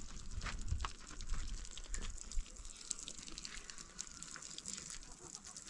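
Water pouring from a plastic jug and splashing onto bare dirt ground, a steady trickle with many small spatters.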